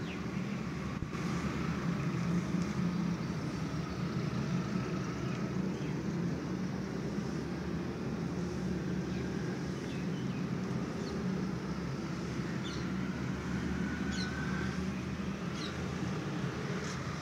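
Steady low outdoor background rumble with no single clear source, with a few faint short high chirps in the second half.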